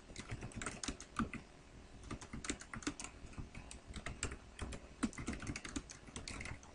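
Typing on a computer keyboard: an uneven run of key clicks, several a second.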